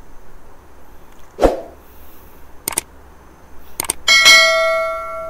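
Subscribe-button animation sound effect: a thump about a second and a half in, a few sharp mouse clicks, then a bright bell ding near the end that rings on and fades.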